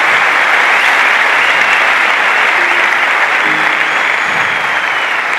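Large audience applauding, a dense, steady wash of clapping that eases slightly near the end.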